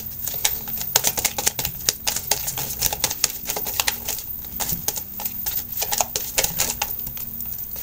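A deck of tarot cards being shuffled by hand: a rapid, irregular run of crisp card clicks and slaps.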